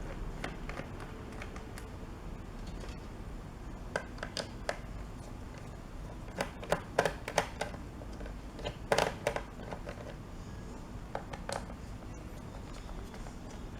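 Scattered small clicks and taps of a screwdriver working the captive screws on a laptop's bottom cover as they are loosened. They come in a few short clusters, the loudest about nine seconds in.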